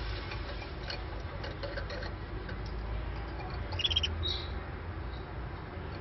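Canary giving one short, high chirp of a few quick notes just before four seconds in, over a low steady hum with faint scattered ticks.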